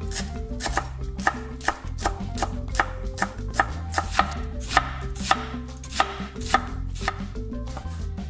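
Steel cleaver chopping herbs on a wooden cutting board: sharp, uneven knocks, about two to three a second, with background music underneath.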